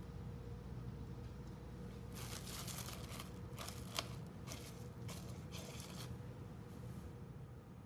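Plastic cling wrap crinkling in a run of short rustles as hands smooth it back over the rim of a stainless steel bowl, with a light tick about four seconds in.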